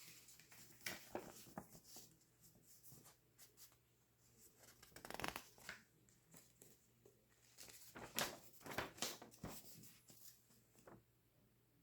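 Packaging and box parts being handled while unpacking a laptop: irregular rustling and light knocks, with louder bursts about five seconds in and again around eight to nine seconds.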